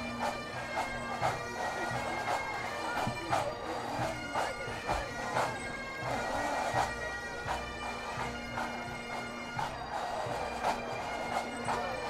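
Pipe band's Highland bagpipes playing a tune over a steady drone, with regular sharp knocks in the background.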